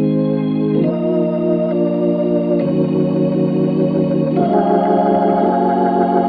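Background music: held organ chords that change every second or two, with a quick pulsing in the last couple of seconds, cutting off suddenly at the end.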